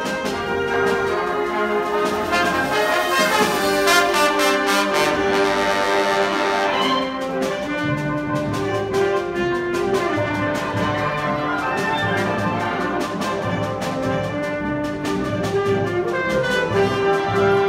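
Solo trombone playing sustained melodic lines over a wind band accompaniment, heard live in the hall. Percussion strikes and a bright cymbal-like shimmer come through between about two and seven seconds in.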